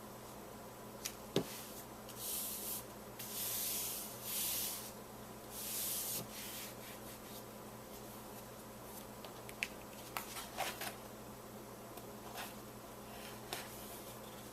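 Cardstock being handled and rubbed down while being stuck together: a couple of sharp clicks, then four short swishes of paper rubbing, then light taps and ticks, over a faint steady electrical hum.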